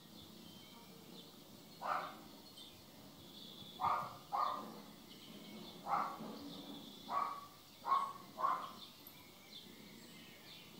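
A cat giving a series of short mews, seven brief calls spaced a second or two apart, with faint bird chirps in the background.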